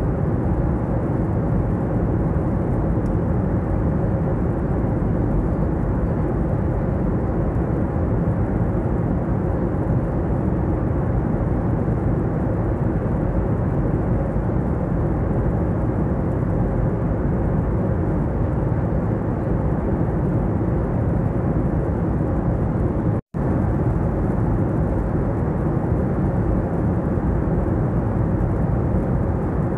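Jet airliner cabin noise at cruise: a steady, deep rush of engine and airflow noise with little in the high range. It cuts out for a split second about three-quarters of the way through.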